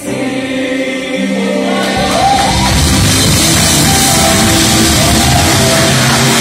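Live gospel worship music: an electronic keyboard holds chords, then about two seconds in the full band comes in louder with drums and bass, with voices singing over it.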